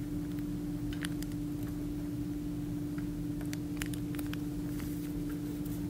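A steady low hum, with a few faint crackles of a sheet of paper being folded and creased by hand.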